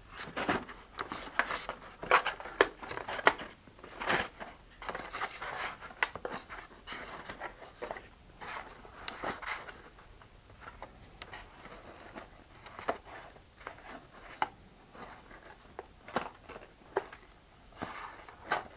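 Handling noise of model-rocket parts: a cardboard alignment guide and balsa wings scraping, rubbing and tapping against a paper body tube and cutting mat. There are scattered short scrapes and clicks, busier in the first half and sparser after.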